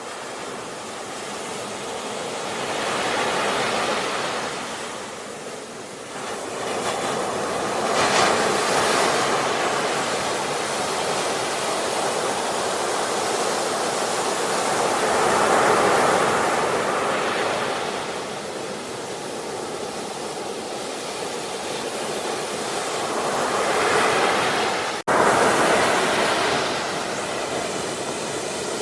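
Ocean waves breaking and washing on a shore, the surf swelling and falling back every several seconds, with a split-second dropout in the sound a little before the end.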